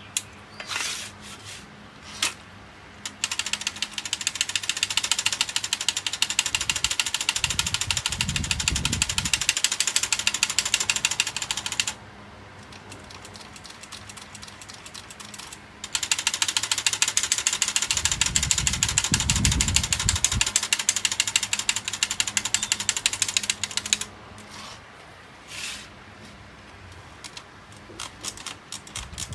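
Vintage Brother Deluxe manual typewriter clattering in two long runs of fast, even clicks, each lasting about eight seconds, with a few single clicks before, between and after.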